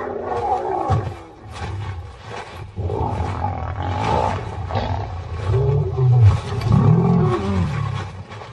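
Lionesses fighting between rival prides, roaring and growling. The loudest stretch, a run of deep, low calls, comes about six to seven seconds in.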